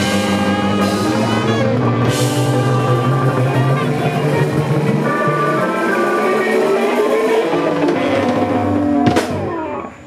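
Live band playing a rock/Americana song with electric guitar and drum kit; the music dips briefly near the end.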